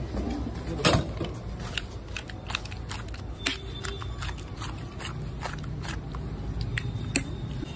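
A metal spoon clicking and scraping against steel serving pots as chole is scooped and mashed: irregular sharp taps, the loudest about a second in and another near the end, over a low steady rumble.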